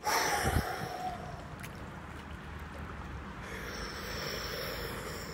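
Water sloshing and lapping, with a person's breathing close by.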